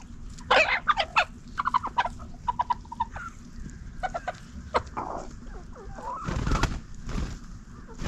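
Domestic hens clucking and squawking: a burst of loud sharp squawks about half a second in, then runs of quick clucks. A short rush of noise comes about six seconds in.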